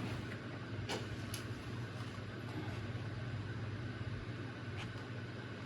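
Steady low hum of workshop background, with a few faint clicks from handling the tire and its tiny wire.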